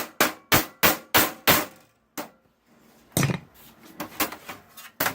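Repeated sharp metal strikes on a desktop computer's steel case, about three a second, stopping after about a second and a half. Then one more knock, and lighter clattering of metal parts.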